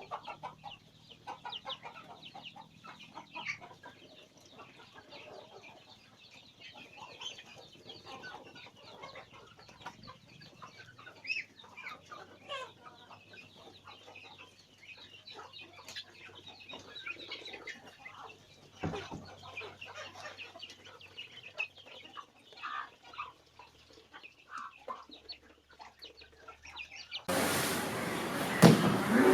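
Chickens clucking, many short scattered calls. Near the end a sudden loud rushing noise begins.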